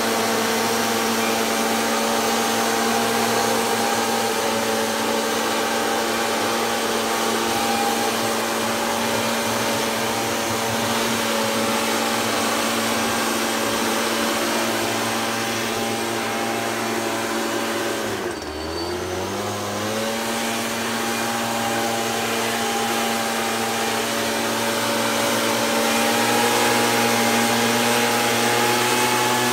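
Two-stroke engine of a backpack mist blower running steadily at high throttle while spraying mosquito treatment. About two-thirds of the way through, its pitch drops briefly as the throttle eases off, then climbs back to full speed.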